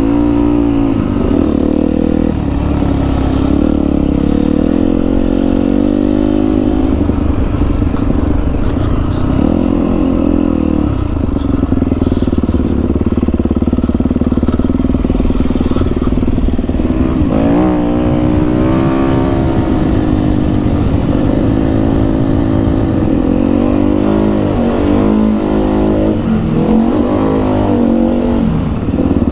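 Dirt bike engine being ridden hard on a trail, its pitch repeatedly climbing and dropping as the throttle is opened and closed. Runs of rising sweeps in the second half come as it accelerates up through the gears.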